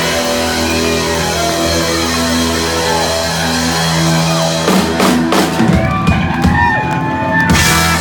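Live rock band playing: a held electric guitar chord rings over bass and drums. Then, from about five seconds in, a rapid run of drum hits and cymbals with swooping guitar noise brings the song to its ending.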